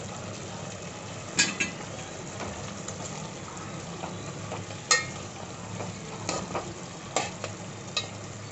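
Chicken pieces frying with spice masala in oil in a steel pot, a steady sizzle, while a steel spoon stirs them and clinks sharply against the pot about five times.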